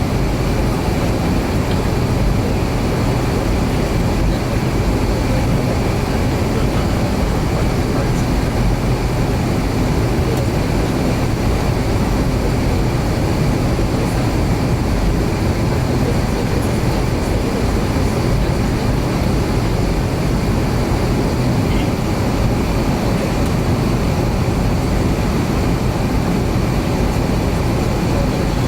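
Steady cabin noise inside an Avro RJ100 on the ground before takeoff: a low rumble from its four turbofan engines at low power, with thin steady high whines over it.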